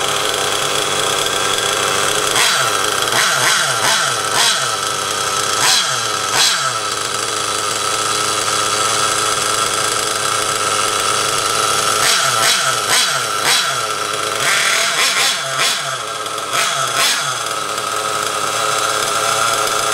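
Sirio .23 nitro engine in an RC truck, running with a high, buzzy idle. A few seconds in comes a run of quick throttle blips, each rev dropping back to idle, and another run follows about twelve seconds in.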